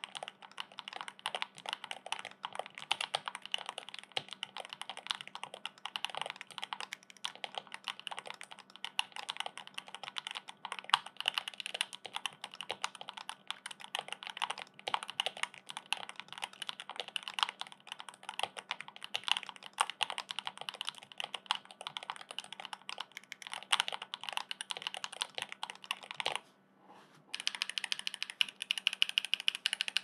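Continuous typing on an AM Hatsu split ergonomic mechanical keyboard with stock Icy Silver switches and Angry Miao Glacier keycaps: a dense run of keystroke clacks. There is a brief pause about 26 seconds in, then the typing resumes.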